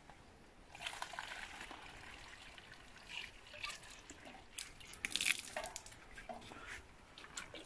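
Spring water poured from a metal ladle into a plastic bottle, trickling and splashing, loudest about five seconds in.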